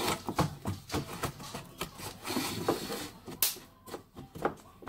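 Wooden-handled spatula knocking and scraping against a metal springform pan while pressing down an Oreo-crumb crust: irregular small knocks, with one sharper knock about three and a half seconds in.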